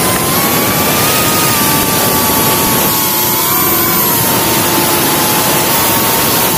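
Small FPV quadcopter's brushless motors and propellers whining in flight, heard through the onboard camera's microphone with wind rush. The pitch drifts up and down a little with throttle.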